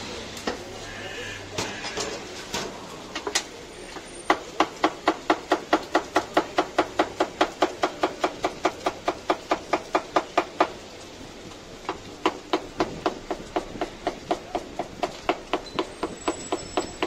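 Large knife chopping green peppers on a wooden cutting board: quick, even strokes, about four to five a second, breaking off for about a second past the middle before starting again. A few scattered knocks come first.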